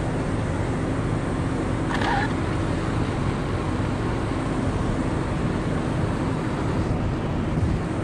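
A steady low rumble of trucks idling, with a brief high squeak about two seconds in.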